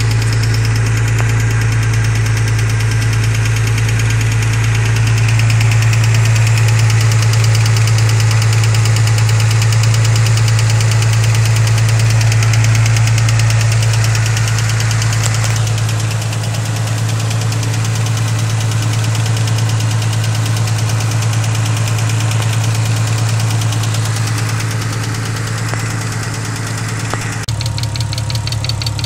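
Nissan Skyline RB25DET turbocharged straight-six running with a steady, regular knock, which appeared after the valve stem seals were replaced. The sound changes abruptly near the end.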